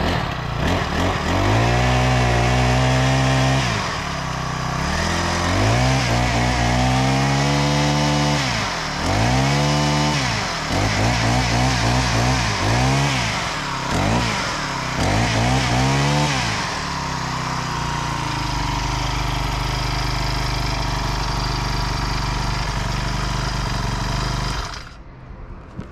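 Honda GX35 four-stroke engine on a lawn edger, running on a newly fitted replacement carburettor: revved up and back down about half a dozen times, then idling steadily before it stops suddenly near the end. It revs cleanly and holds its idle, showing that the new carburettor has fixed it.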